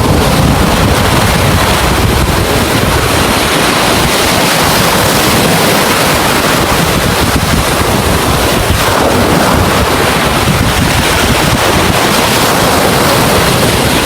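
Large ocean waves breaking in a loud, steady wash of noise, with wind buffeting the microphone.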